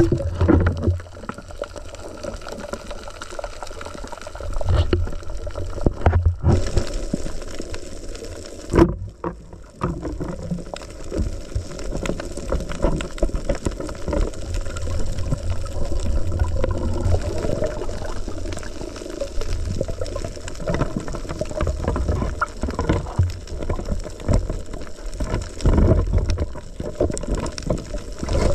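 Underwater sound picked up by a diver's camera: water moving and gurgling over a low rumble, with frequent small irregular clicks and knocks.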